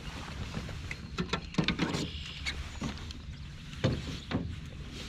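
Knocks, clicks and a few heavier thumps of a person moving about and sitting down in a canoe with a wooden deck, gear clattering against it, over a steady low rumble.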